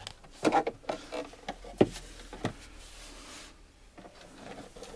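A few light clicks and knocks from screws, tools and parts being handled while a battery box is taken apart, the sharpest knock a little under two seconds in.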